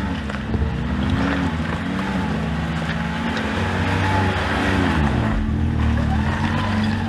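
Side-by-side UTV engine working up a steep rocky climb, its revs rising and falling several times as the driver feathers the throttle.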